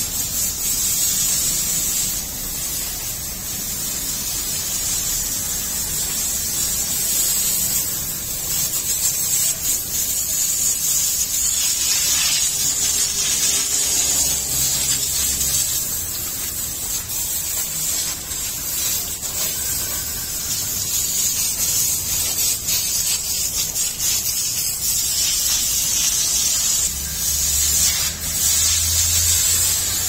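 Garden hose spraying a fan of water over a cow's back: a steady hiss of spraying water.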